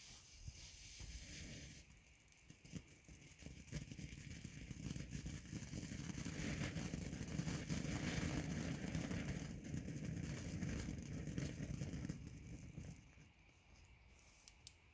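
Consumer firework from a selection box burning with a dense crackling fizz. It starts about two seconds in, runs for about ten seconds and dies away near the end.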